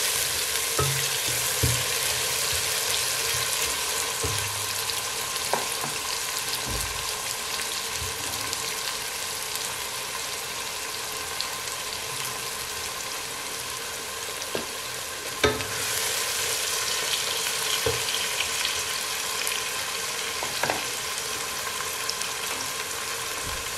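Chopped tomatoes, onions and ginger-garlic paste sizzling steadily in hot oil in a pot, with a wooden spoon stirring at first and a few short knocks against the pot.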